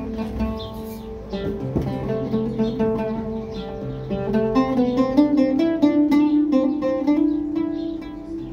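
Oud playing a melody with fast tremolo plucking over a steady reed drone from a shruti box. The melody climbs in steps and grows louder about halfway through.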